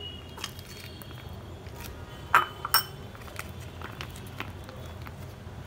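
A few light clinks of a steel spoon against a small glass bowl, ringing briefly. The loudest two come close together about two and a half seconds in.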